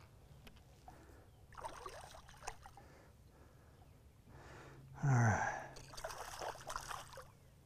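A man's hard exhalation with a short falling grunt about five seconds in, straining against a hooked bass on a bent rod. Quieter bursts of breathy noise come and go around it.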